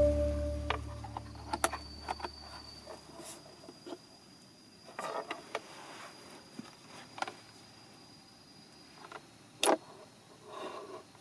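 Background music fading out in the first moments, then quiet outdoor ambience: a thin, steady high insect note with scattered small clicks and taps, and one sharper click near the end.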